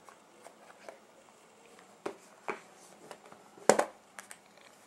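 Hands handling a new iPhone 4 and its box packaging: scattered light clicks and taps, with one louder knock a little past three and a half seconds in.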